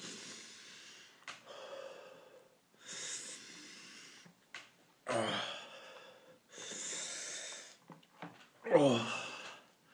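A man breathing hard in long, hissing breaths and blowing out through pursed lips, with two falling groans, about five seconds in and near the end, the last the loudest. He is in pain from the burn of a Carolina Reaper pepper in his mouth and throat.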